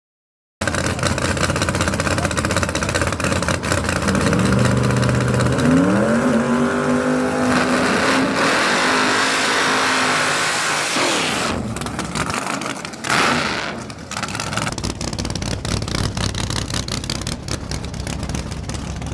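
Drag race car engine running and revving, its pitch climbing sharply about six seconds in, with a short loud burst of noise around thirteen seconds in.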